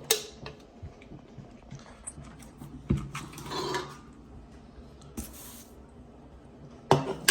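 A man eating at close range: scattered sharp clicks and knocks of tableware and food handling, with a short rough noise about three seconds in and a loud pair of knocks near the end.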